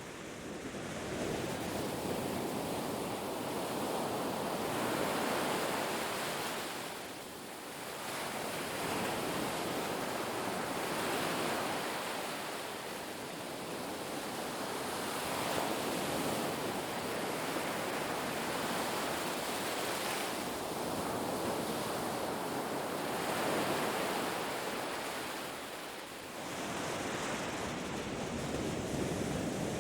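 Ocean waves breaking and washing up a beach in a continuous rushing surf that swells and ebbs, with brief lulls between sets of waves.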